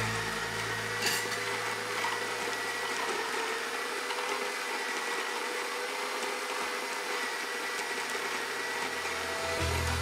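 A Bodum electric burr coffee grinder runs a timed grind of whole beans with a steady motor whine. It is grinding slowly: after a year of home use it leaves more than half of a 40 g load in the hopper at the end of a 20-second cycle.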